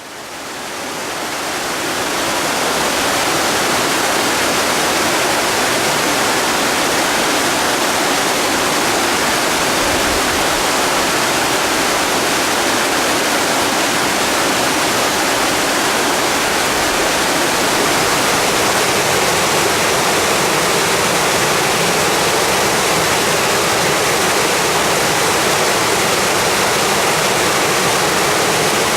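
Waterfall rushing, a loud, steady hiss of falling water that fades in over the first couple of seconds.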